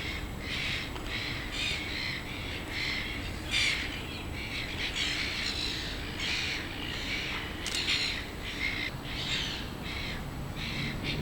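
Birds calling over and over, short harsh calls following each other about twice a second, over a steady low background rumble.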